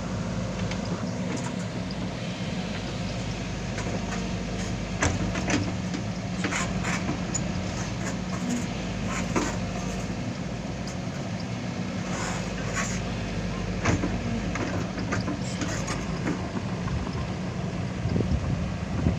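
Excavator's diesel engine running steadily, with scattered short knocks and clicks over it.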